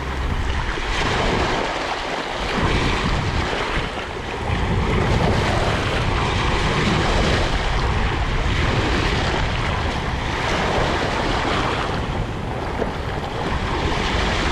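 Sea waves washing and breaking, a steady rush that swells and eases, with wind buffeting the microphone.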